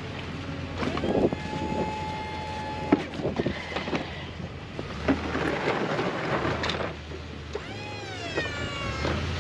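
Truck-mounted snowplow being worked against a curb to straighten it: a low hum that cuts in and out several times, a few sharp knocks, and a squeal that bends down in pitch about eight seconds in.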